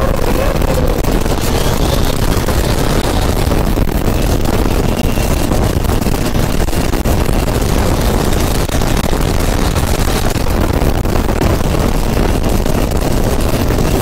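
Modified big-turbo 1,900 cc diesel long-tail boat engine running steadily at speed under heavy load, pouring dark exhaust smoke, with rushing wake water. The loud noise holds level throughout.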